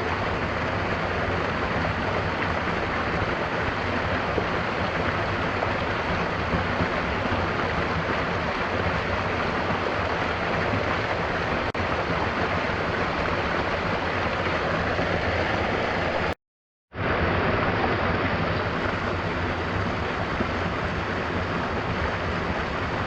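Steady rush of a waterfall with gentle rain falling. About two-thirds of the way through the sound cuts out completely for half a second, then comes back unchanged.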